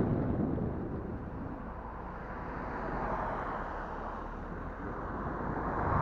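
Wind rushing over an action camera's built-in microphone, with vehicle noise underneath; it eases off in the middle and swells again near the end.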